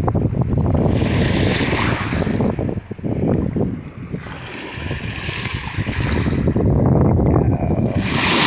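Wind buffeting the phone's microphone in a steady low rumble, while small waves wash in and out over shallow, shelly sand, swelling three times.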